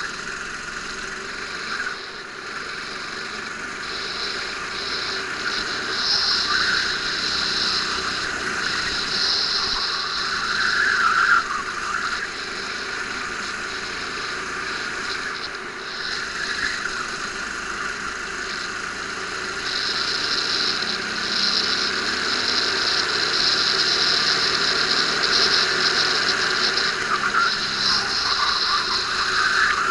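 Go-kart engine running at racing speed, heard from a camera mounted on the kart, a high-pitched whine that swells and fades as the kart works through the corners.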